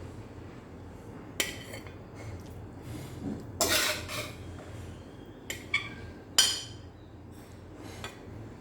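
Kitchen utensils clinking and scraping against dishes in several separate short strokes, the loudest about six and a half seconds in.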